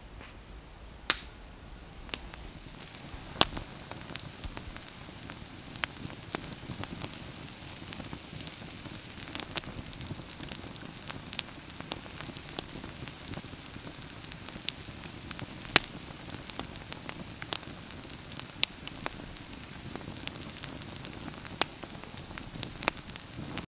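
Wood fire burning and crackling, with sharp irregular pops, a few of them loud, over a steady low rush of flame.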